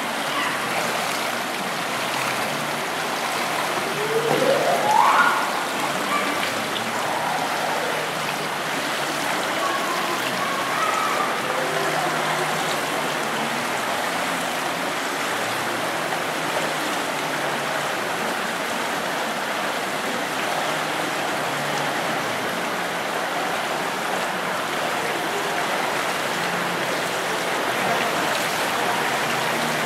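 Steady splashing and churning of pool water as several swimmers kick and stroke through the lanes. A short rising tone about five seconds in.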